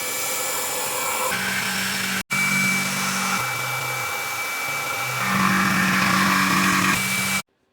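CNC milling machine facing down an aluminium bar: a steady spindle whine and cutting noise with a high hiss, its lower tones shifting in pitch as the cutter passes over the block. It breaks off abruptly about two seconds in and again near the end.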